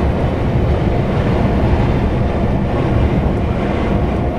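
Iveco EuroStar truck heard from inside the cab while driving: a steady, loud low rumble of the diesel engine and road noise.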